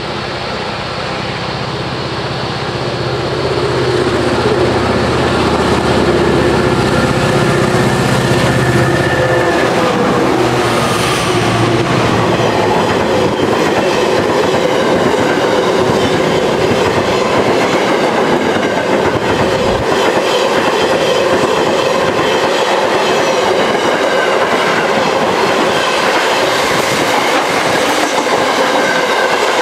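Diesel locomotives at the head of an intermodal container freight train pass close by. The loudness builds over the first few seconds, and the engine note drops in pitch as they go past at about eight to ten seconds in. The container wagons follow, rolling past with a steady, loud rumble and clatter of wheels on the rails.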